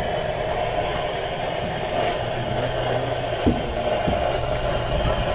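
Boat engine running steadily, with a sharp tap about three and a half seconds in.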